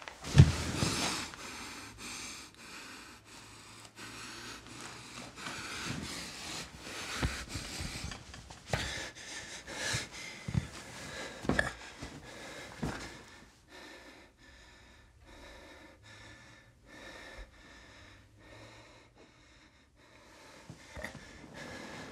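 A person's ragged, wheezing breathing with sniffs and short catches of breath, irregular throughout. A sudden loud sound opens it, and the breathing grows fainter in the second half.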